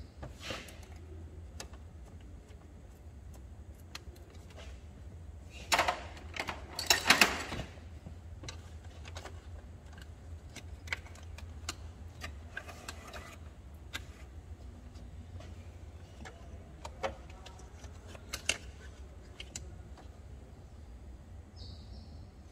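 Hand tools clinking and knocking on metal and plastic engine parts during engine-bay work, with scattered single clicks and a loudest burst of clattering knocks about six to seven and a half seconds in, over a steady low hum.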